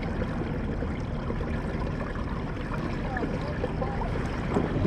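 Sea water splashing and gurgling steadily against a kayak's hull as the motorized kayak moves along.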